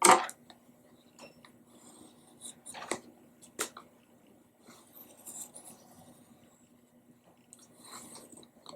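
Pencil scratching faintly on paper while tracing around the base of a round object, with a few light clicks as the object or pencil touches the table.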